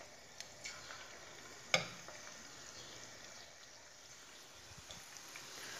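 Faint sizzling of batter-coated chicken pieces frying in hot oil in a stainless steel pan as more pieces are spooned in, with a single sharp clink about two seconds in and a few lighter clicks.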